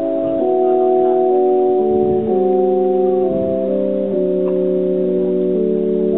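Organ playing slow chords of long held notes, the harmony moving every second or so.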